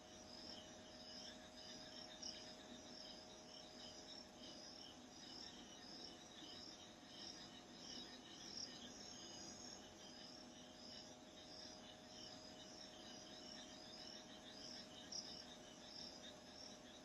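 Faint insect chirping, most likely crickets, repeating evenly and steadily, over a low steady hum: near-silent evening background.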